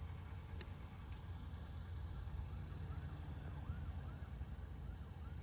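A golf club striking the ball on a full swing from the fairway: one sharp crack about half a second in, over a steady low rumble. From about two and a half seconds in, a run of short rising-and-falling chirps.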